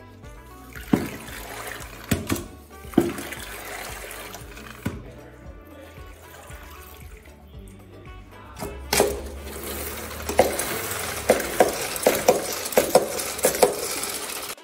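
Spin mop being dunked and sloshed in its bucket's soapy water, with splashes and knocks against the bucket. About nine seconds in, the mop is wrung in the bucket's spin basket: a steadier whirring splash with repeated clacks as the handle is pushed. Background music plays throughout.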